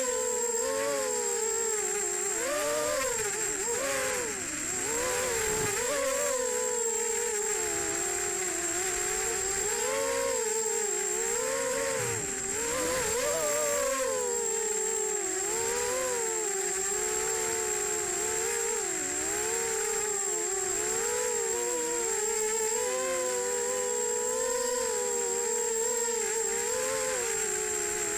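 EMAX Nighthawk Pro 280 racing quadcopter's four brushless motors and propellers whining, heard through its onboard camera, the pitch rising and falling constantly with the throttle. A steady high-pitched tone sits above the motor whine throughout.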